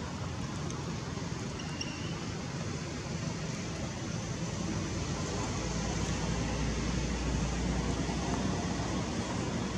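Steady rushing background noise with no distinct source. A low rumble joins it about halfway through, and a faint brief high chirp sounds near two seconds in.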